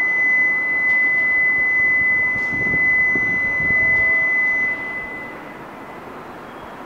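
Shinkansen platform's electronic departure warning tone: one steady, high-pitched beep held about five seconds, then fading out, with a faint low rumble underneath.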